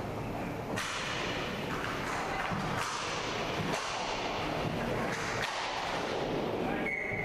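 Inline hockey play: sticks slapping and a hard plastic puck clacking on the rink floor over a steady rolling noise of skate wheels, with several sharp strikes. A high steady tone starts just before the end.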